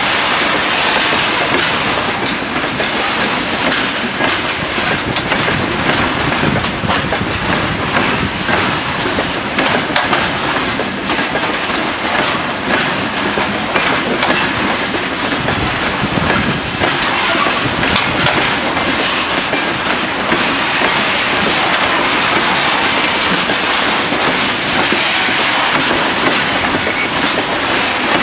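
Freight train of open gondola wagons rolling past, the wheels clicking over the rail joints in a steady clickety-clack.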